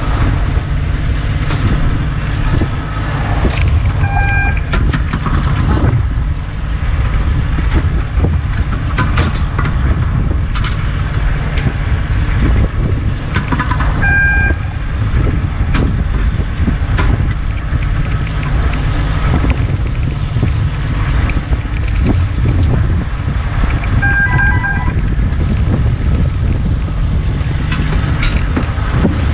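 Wind buffeting the microphone over a fishing boat's engine running steadily. Three short electronic beeps come about ten seconds apart, the rhythm of a longline setting timer that tells the crew when to clip on the next branchline.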